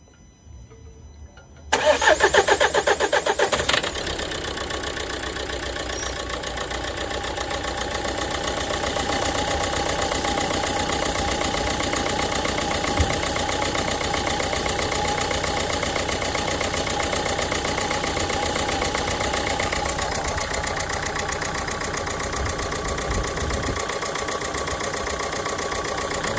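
Renault Megane 1.5 dCi four-cylinder diesel engine started about two seconds in, loud for the first couple of seconds, then idling steadily. The engine is running on its faulty number 3 injector, which has been cleaned in boiling water and refitted as a test.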